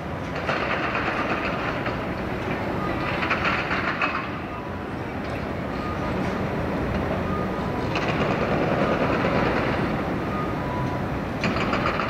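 Demolition machinery: excavator engines running steadily, with bursts of rapid clattering hammering, typical of a hydraulic breaker on concrete, coming in four stretches.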